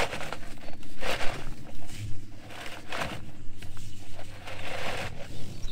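Black corrugated plastic drain tile being dragged through a trench and under a concrete sidewalk, its ribs scraping and rattling against soil and concrete in short bursts about once a second.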